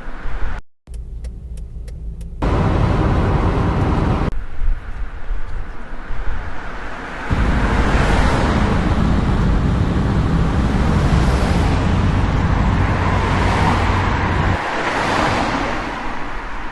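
2007 Honda Fit driving on the road: steady engine and tyre noise, cut abruptly several times between clips, with one loud stretch lasting several seconds.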